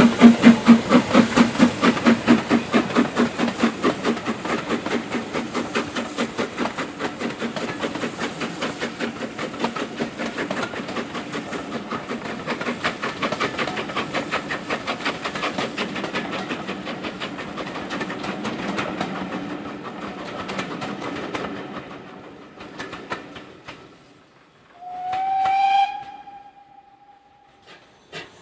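A steam train passing, with a fast, regular beat from the working locomotive and the clatter of its coaches, loudest at first and fading away as it draws off. About 25 seconds in, a steam locomotive's whistle gives one short blast.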